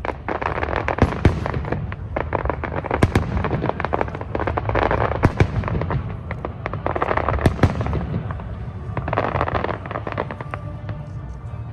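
Fireworks display: a rapid series of sharp bangs from bursting shells, with spells of dense crackling from glitter effects every couple of seconds over a low rumble.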